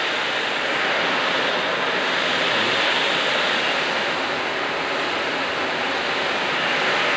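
Steady rushing air noise of a commercial kitchen exhaust hood running over a wood-fired grill, even and unbroken.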